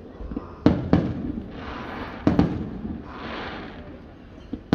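Aerial fireworks bursting: two quick pairs of sharp bangs, with a hiss in between and a smaller bang near the end.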